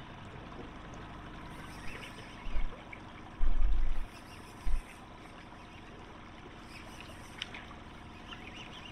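Water lapping and trickling against a small boat's hull, with a few dull, very deep thumps about halfway through, the longest lasting about half a second.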